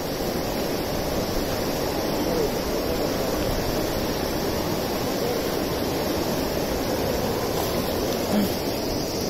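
River in flood rushing through rapids over rocks: a steady, unbroken rush of churning water.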